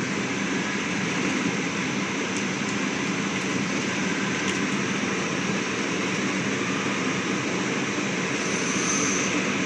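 Steady, unchanging rushing noise of ventilation running.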